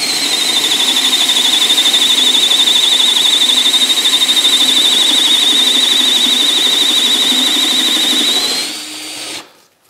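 Festool C18 brushless 18 V cordless drill driver on speed 1, boring into a wooden block with a 35 mm Forstner bit. A steady high motor whine settles slightly lower in pitch while the bit cuts, rises briefly near the end as the load comes off, then stops.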